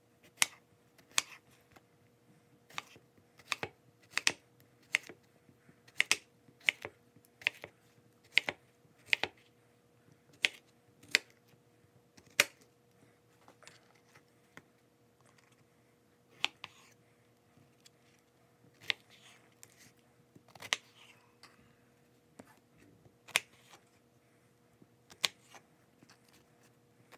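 Chef's knife slicing through a zucchini and knocking on a wooden cutting board: crisp, separate chops, roughly one a second, coming thicker in the first half and more spaced out later.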